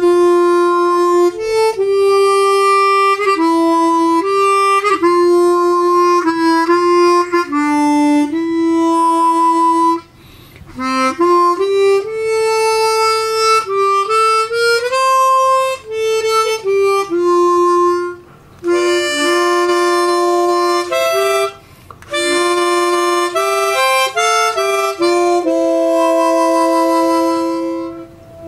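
Hohner Chrometta 12 chromatic harmonica, its reeds freshly re-gapped, played as a test: a single-note melody of held notes, then from about two-thirds of the way in, chords of several notes sounding together, with brief breaks between phrases.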